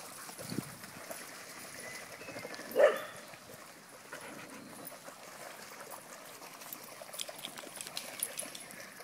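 A dog barks once, short and sharp, about three seconds in, over the steady trickle and splashing of water as several dogs wade through a shallow stream.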